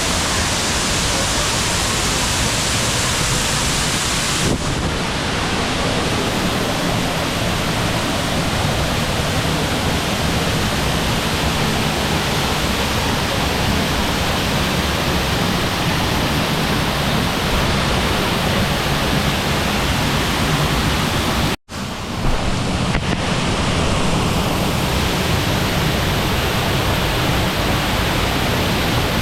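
Waterfall close by: a loud, steady rush of falling water. It cuts out for a split second about three-quarters of the way through, then carries on unchanged.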